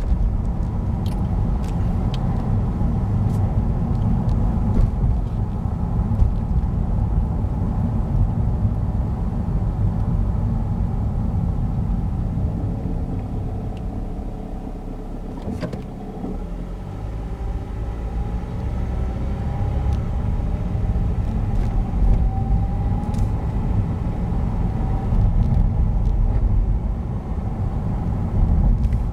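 2006 Honda Civic LX's 1.8-litre R18 four-cylinder engine running after a cold start with a rattle. A steady low rumble that eases briefly about halfway through, with scattered sharp ticks.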